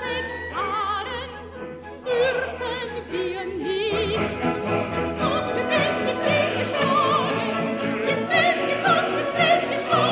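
Background music: operatic singing with orchestral accompaniment, a high voice with wide vibrato over sustained strings.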